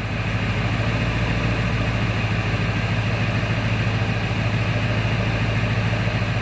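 Ford 7.3 Powerstroke V8 turbodiesel idling steadily, heard from inside the cab, running on the tuner's stock idle setting.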